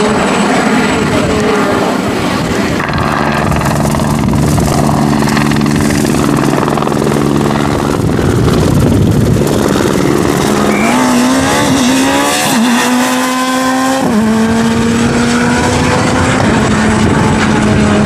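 Skoda Fabia Super 2000 rally car's two-litre four-cylinder engine at full throttle as the car passes at speed. Its pitch climbs and drops back several times through gear changes about ten to fourteen seconds in.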